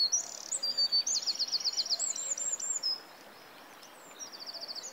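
A songbird singing high, rapid trills and whistled notes. It stops for about a second and starts again near the end, over a faint steady hiss of forest ambience.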